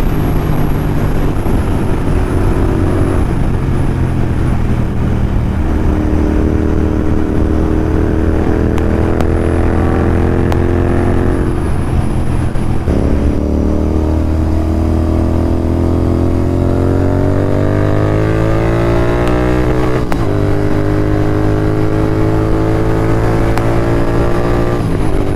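Royal Enfield Continental GT 650's parallel-twin engine, fitted with Red Rooster aftermarket exhausts, running hard under acceleration. Its pitch climbs through each gear and drops back at upshifts about 13 and 20 seconds in.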